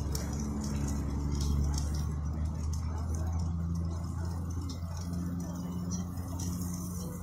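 Steady low hum with faint pitched sounds above it that come and go, and light scattered clicks.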